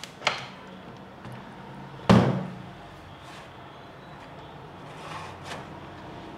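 Oven door and cake tin being handled as the baked cake is taken out: a small click, then one loud thud about two seconds in, then a few softer knocks.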